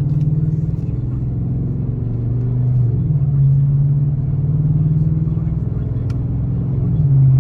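2018 Chevy Silverado 1500's engine, fitted with an S&B cold air intake and a Corsa exhaust, droning steadily while the truck is driven. The note wavers briefly about three seconds in and again near the end.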